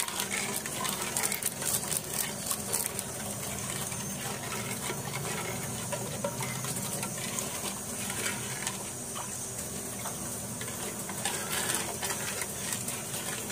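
Liquid being stirred with a plastic ladle in a large aluminium pot: steady swishing and sloshing, with many small clicks as the ladle knocks and scrapes against the pot, while a mint-flavoured drink is mixed.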